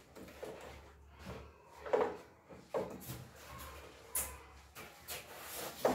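Ducklings moving about in a plastic tub, their feet and bills knocking and scraping on the plastic. There are a handful of short sharp knocks, the loudest about two seconds in and another near the end.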